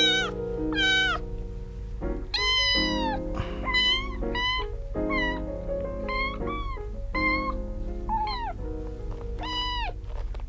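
Very young kittens mewing: about a dozen short, high cries, each rising then falling in pitch. These are the cries of kittens in a mild panic while being held and having a bottom wiped.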